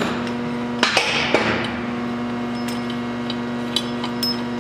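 Light metal clinks and taps as the bolt is worked out of the clutch on a Polaris Scrambler 1000, with one sharper clank about a second in. A steady hum runs underneath.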